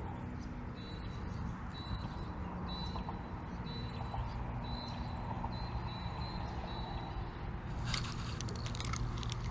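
A bird repeating a short, high note about once a second over a steady low rumble, followed near the end by a quick run of sharp clicks.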